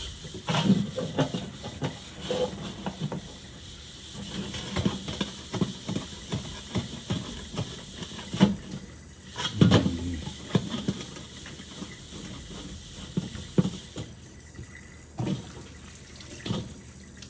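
Scrub sponge rubbing and knocking on the outside of an upturned steel wok in a sink, in irregular strokes over the hiss of a running tap. The tap hiss stops near the end.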